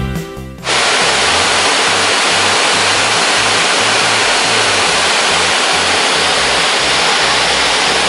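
Background music cuts off about half a second in, giving way to the loud, steady rush of the Pongour waterfall's wide, tiered cascades of falling water.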